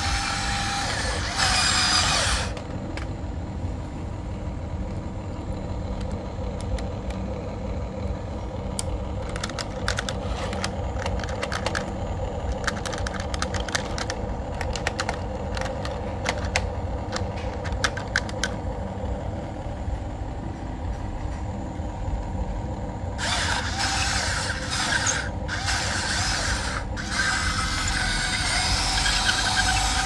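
Huina remote-control excavator's electric motors and gearing running with a steady whine and low hum. It turns louder and noisier for the first couple of seconds and again for the last several seconds, with a run of sharp clicks in the middle.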